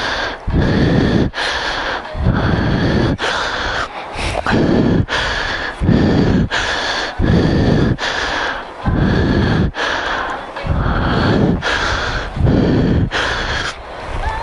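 A person breathing heavily and rhythmically close up, one loud rush of breath about every second.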